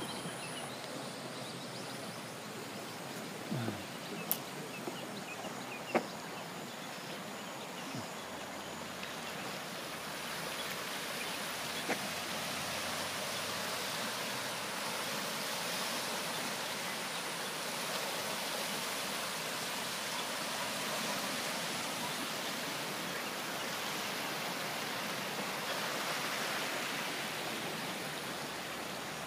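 Steady rush of a swollen, muddy river in flood after heavy rain, a little louder from about ten seconds in. A few light clicks or knocks come in the first six seconds.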